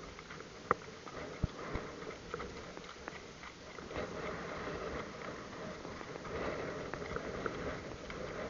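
Storm wind rushing over the microphone with rain pattering, growing a little louder after about four seconds, with a few sharp knocks near the start.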